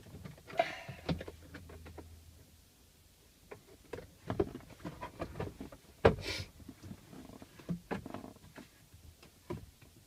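Plastic glove box of a Ford StreetKa being pulled out of the dashboard and unclipped: scattered clicks, knocks and rustles of the trim being handled, with a louder clatter about six seconds in.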